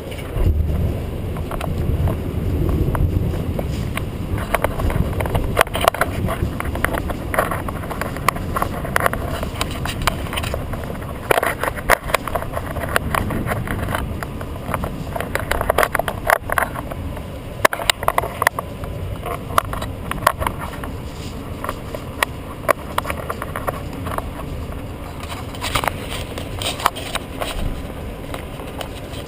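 Rain falling during a thunderstorm, with many sharp drop clicks close by, over a steady low rumble that is strongest in the first few seconds.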